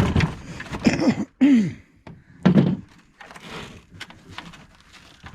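A few dull thunks and knocks as the plastic housing of an air-conditioner unit is smashed and pulled apart, with a short falling vocal sound among them.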